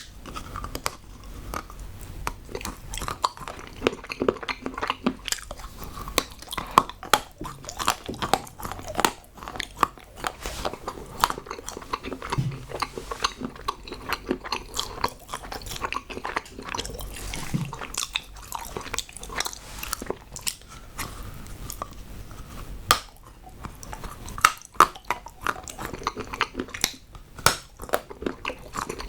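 Close-miked biting and chewing of hard chocolate: many irregular crunches and snaps with the wet sound of chewing.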